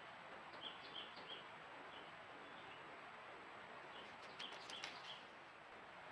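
Faint night ambience through a trail camera's microphone: a steady hiss with a few short, high chirps in two small groups, about a second in and again about four seconds in, alongside a cluster of faint clicks.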